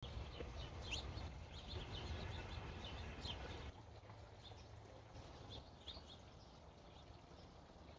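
Small birds chirping faintly in short repeated calls over a low outdoor background rumble; the sound drops quieter about four seconds in, with only a few chirps after.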